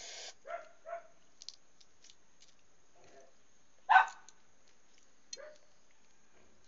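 A dog barking in short separate barks, about five times, the one about four seconds in much louder than the rest.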